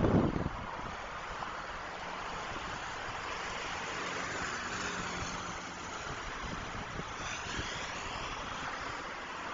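Steady hiss and rumble of city highway traffic, tyres on the road as cars pass. A brief loud low rumble opens it, and about seven seconds in a passing vehicle's high whine sweeps in pitch.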